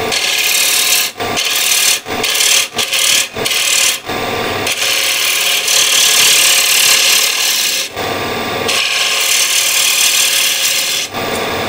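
Bowl gouge cutting the spinning cherry rim on a lathe: a steady rushing hiss of wood being shaved, broken by several short gaps in the first four seconds and a longer one about eight seconds in as the tool comes off between passes.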